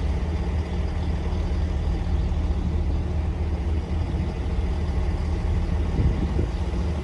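Great Western Railway Class 800 train arriving into the station: a steady low rumble.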